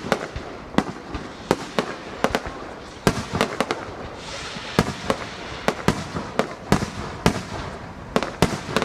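Aerial fireworks bursting in rapid succession, a starmine-style volley: many sharp bangs at uneven spacing, some in quick clusters, over a continuous crackle.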